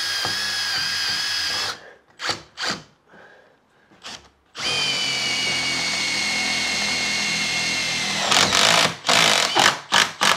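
Cordless drill driving a 110 mm self-drilling roofing tek screw up through an aluminium door frame into steel. A steady motor whine runs for about two seconds, then come a few short blips. A longer run of nearly four seconds follows, its pitch falling slightly as the tool works, and it ends in a quick series of short bursts as the screw is tightened up solid.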